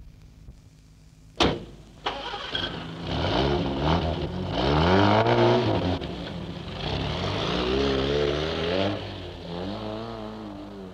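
A car door slams shut about a second and a half in, then a 1950s saloon car's engine starts and is revved, its pitch rising and falling several times as the car pulls away through the gears, easing off near the end.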